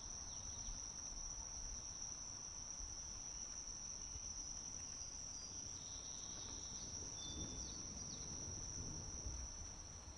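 Insects trilling outdoors: one steady, unbroken high-pitched drone over a low background rumble, with a few faint short chirps in the second half.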